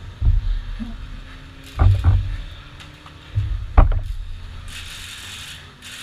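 Handling noise from an action camera: a few dull knocks and rubbing against the microphone as it is set down, over a low wind rumble. A steady hiss follows near the end.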